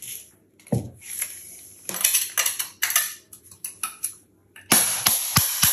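Hammer striking a chisel to chip old ceramic wall tiles off, in irregular sharp metallic taps and clinks of tile pieces. Near the end, background music with a steady quick beat comes in.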